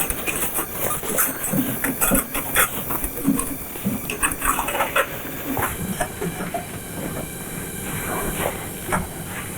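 Steel wire shelf rattling and clanking as it is worked down onto the posts of a wire shelving unit: irregular metal knocks and clicks over a steady hiss.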